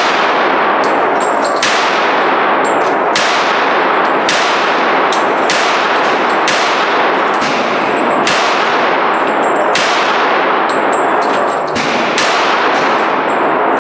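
Handguns firing a long, steady string of shots, a dozen or more, about one to two a second, each shot trailing a ringing echo. This is rapid fire, two shooters going at their targets together.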